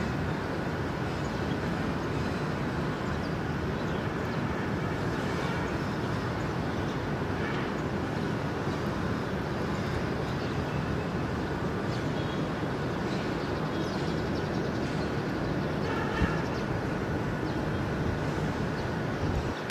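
Steady rushing outdoor noise of distant airport and road traffic, with a faint steady whine and a single click about three-quarters of the way through.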